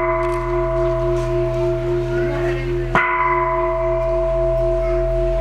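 Temple bell ringing on in long, slowly pulsing tones from a strike just before, then struck again about three seconds in, over a steady low hum.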